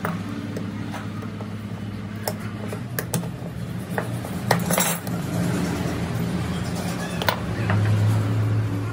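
Small metal parts clinking and clicking as a truck air brake pedal valve is reassembled by hand: brass fittings and springs knocking against the aluminium valve body in scattered sharp clicks, over a steady low hum.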